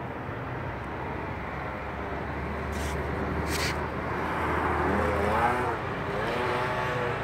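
A steady low motor hum that stops about five and a half seconds in. Two short hissing noises come about three seconds in, and from about five seconds a wavering, voice-like sound is heard.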